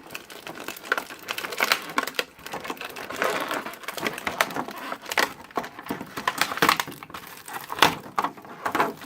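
Plastic packaging crinkling and rustling as it is handled, with many irregular small clicks and taps.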